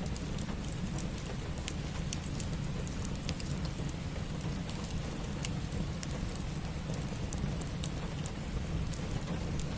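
Steady rain, mixed with a wood fire in a fireplace giving scattered small, sharp crackles and pops throughout.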